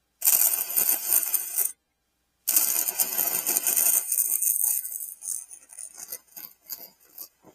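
Electric arc welder crackling in two bursts, the second breaking up into sputters that die away near the end. The weld burns right through the washer being welded on.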